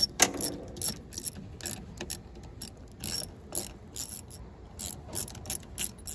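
Socket ratchet clicking in a string of short, sharp, uneven clicks as it is swung back and forth, backing out the bolts that hold the water-pump retainer on an outboard's lower unit.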